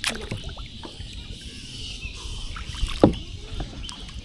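Kayak paddling: paddle strokes dipping and splashing in the water over a low rumble. There are two sharp knocks, one at the start and a louder one about three seconds in.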